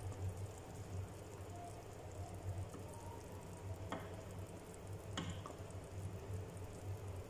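Beef broth simmering in an aluminium stockpot while a wooden spatula stirs it. The spatula knocks lightly against the pot twice, about four and five seconds in.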